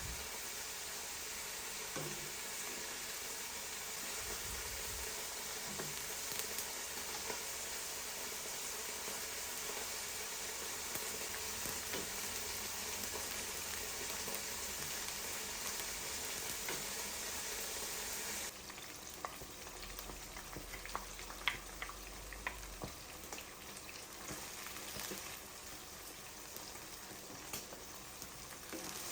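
Food frying in a pan with a steady sizzle. About two-thirds of the way through, the sizzle suddenly drops to a quieter level, with scattered light clicks over it.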